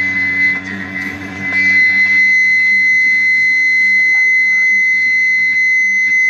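Live experimental noise music: a loud, steady high tone with fainter overtones above it, over a lower droning layer that drops away about a second and a half in.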